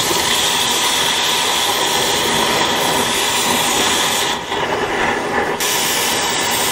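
Cutting torch running with a steady loud hiss as it cuts through the steel of a Cat D4's track idler spring; the hiss thins for about a second around four and a half seconds in.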